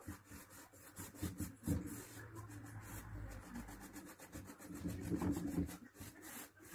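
Paintbrush brushing furniture paint onto a wooden bedside table's frame, a quick run of short scrubbing strokes of the bristles on the wood.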